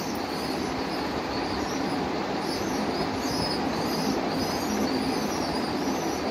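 Pigeon squabs making thin, high begging squeaks over and over, about once or twice a second, while a parent feeds them beak to beak. Underneath runs a steady rushing background noise.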